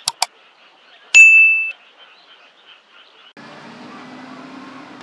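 Subscribe-button sound effect: two quick clicks, then a bright bell ding that rings for about half a second, over faint rhythmic chirping. About three seconds in, a steady hiss with a low hum comes in.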